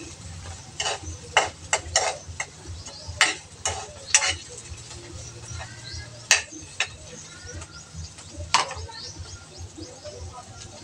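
A cooking utensil scraping and knocking against a wok while okra is stir-fried: about ten sharp, irregular clacks, most of them in the first four seconds, then two or three more spaced out later.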